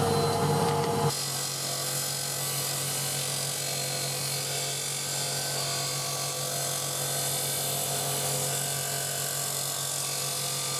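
Small electric stone-cutting saw running, a steady motor hum with the even grinding hiss of a piece of chalcedony being pressed against its water-cooled cutting disc. The sound changes abruptly about a second in, then holds steady.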